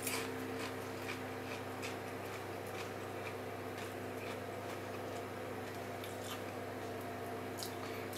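Steady low hum with a few constant tones, like a running kitchen appliance, with a few faint scattered ticks over it.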